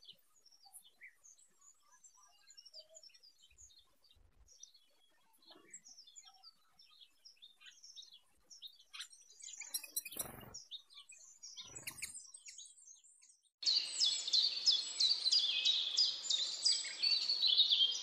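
Faint, scattered chirps of small songbirds, with two brief soft knocks near the middle. About three-quarters of the way in, a much louder bird song starts abruptly: a fast run of repeated high notes.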